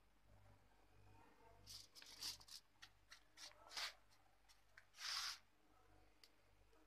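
Faint crinkling and rustling of aluminium foil and a clear wrapping sheet being handled: a run of short crackles from about two seconds in, then the loudest crinkle at about five seconds.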